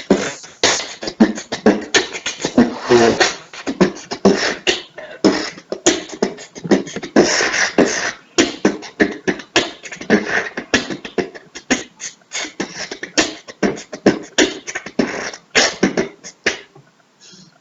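Beatboxing: a fast, continuous run of mouth-made drum sounds (kicks, snares and hi-hat clicks) in a steady rhythm, stopping about a second before the end.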